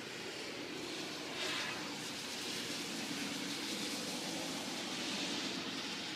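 A car passing on a rain-wet road: the tyre hiss swells from about a second and a half in and peaks near the end, over steady rain.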